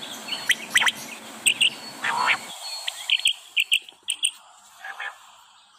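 Birds chirping in quick, short, high calls repeated over and over, over a steady background hiss that cuts off about two and a half seconds in.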